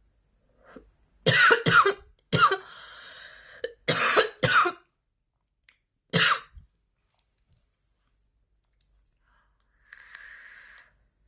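A woman coughing hard: about six forceful coughs in quick clusters over the first five seconds, the last one about six seconds in. Audible breaths are drawn between the coughs, and there is another breath near the end.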